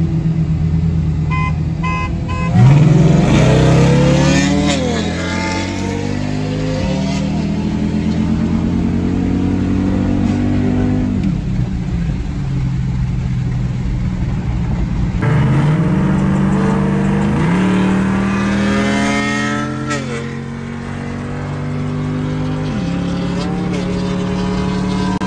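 Ford Mustang GT's three-valve 4.6-litre V8, heard from inside the cabin, accelerating hard through the gears. The engine note climbs, drops at each upshift and climbs again, about seven shifts in all. The loudest point comes as the pull starts, about three seconds in.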